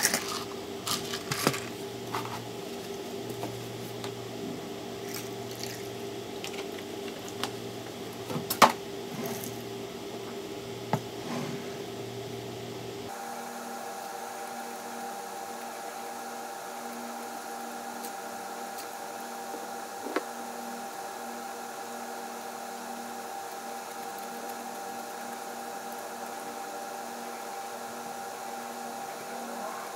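A steady electrical hum, changing abruptly in pitch about 13 seconds in. Over it come a few sharp clinks and taps, clustered at the start as iced tea with ice is poured from a foam cup into a glass, then scattered.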